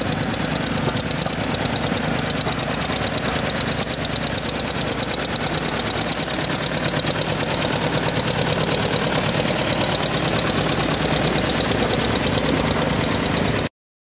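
McCormick Farmall tractor's four-cylinder engine running at a steady speed while being driven, with a rapid, even exhaust beat.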